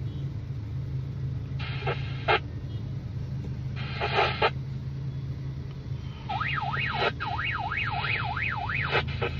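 An alarm-like warbling tone comes over a two-way radio on a ham-style repeater channel, sweeping up and down about three times a second during the last few seconds. Two short bursts of radio noise come earlier, over a steady low hum. It is typical of someone jamming the repeater with alarm sounds.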